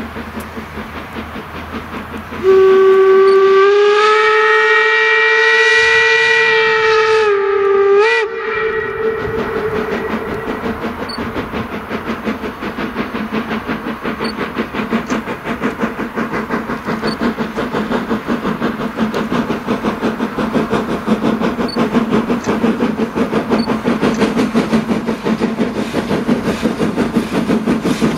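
A steam locomotive, No 34, sounds one long steam whistle blast of about five seconds, its pitch rising slightly at the start, then gives a short toot. After that its exhaust beat and running noise grow steadily louder as it approaches.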